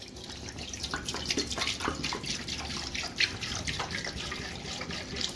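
Milk pouring in a steady stream into a stainless steel pot, splashing as the pot fills.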